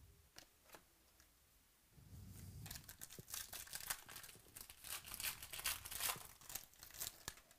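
Foil wrapper of a 2018 Panini Prizm football card pack crinkling and tearing as it is ripped open by hand, a dense crackle starting about two and a half seconds in. A couple of faint clicks come before it.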